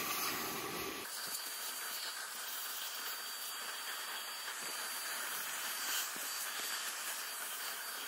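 Vacuum cleaner hose nozzle sucking hair and dust out of a robot vacuum's opened chassis: a steady hissing rush of air with a faint high whine. The low rumble drops away about a second in.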